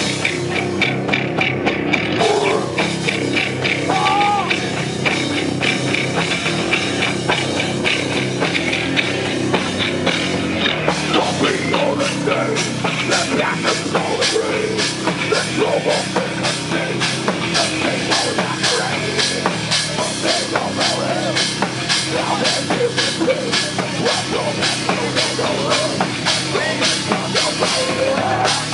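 A heavy metal band playing live, with distorted guitars over a drum kit. From about ten seconds in, the drums settle into steady, fast, evenly spaced hits.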